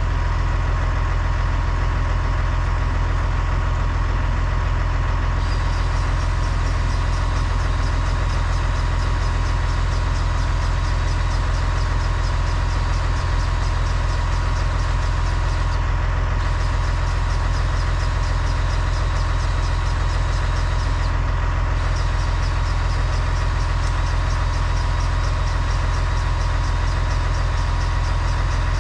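Massey Ferguson tractor's diesel engine idling steadily. A faint high, rapid ticking joins in about five seconds in and drops out briefly twice.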